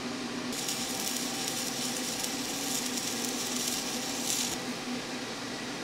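Stick-welding arc crackling as a 3/32-inch nickel 55 rod is run at 60 amps on cast iron. It starts about half a second in and stops about four seconds later.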